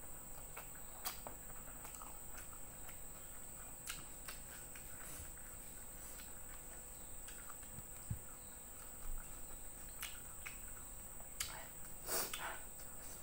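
Faint chewing and small clicks and smacks as fried fish and rice are eaten by hand from a stone mortar bowl, over a steady high-pitched whine. The eating noises come a little louder about twelve seconds in.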